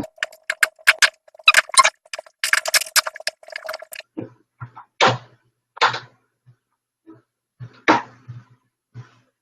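Screwdriver turned by hand on the screws of a door knob: a quick run of small metallic clicks with a steady squeak under them for about four seconds, then a few separate scrapes.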